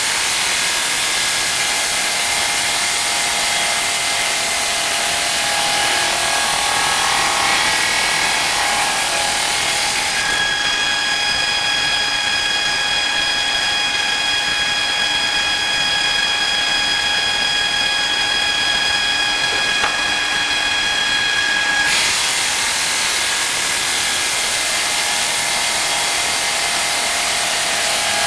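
Water-cooled diamond blade of an automatic cross-cutter sawing through a granite slab: a steady grinding hiss over a high whine. About ten seconds in the hiss thins and the whine stands out, until the full hiss returns about twenty-two seconds in.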